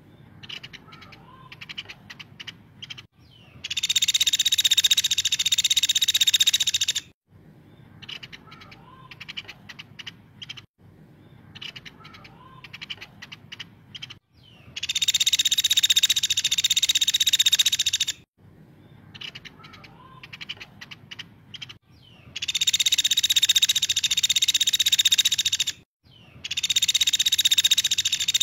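Caladi (small woodpecker) calling: four long, loud, high-pitched calls of about three seconds each, with fainter sharp ticks and short chirps in the gaps between them.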